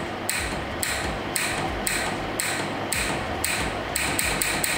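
24 V solenoid argon gas valve, switched by the TIG torch's trigger, clicking open and shut over and over with a short hiss each time. It goes about twice a second, then faster near the end.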